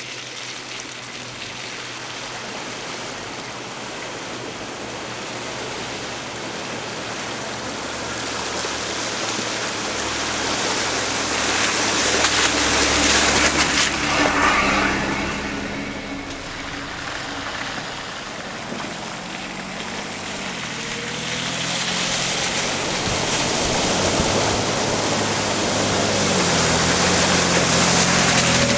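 Two off-road vehicles, a Jeep Wrangler and then an SUV, drive one after the other through a shallow flooded sand trail, with engines running and tyres churning and splashing water. The noise swells as the first vehicle comes through. The second vehicle's engine note rises and falls as it approaches and passes close, splashing loudest near the end.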